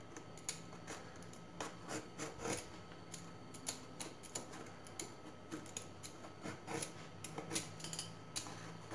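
Hand vegetable peeler scraping strips of skin off an eggplant, peeling it in stripes: faint, irregular short scrapes and clicks.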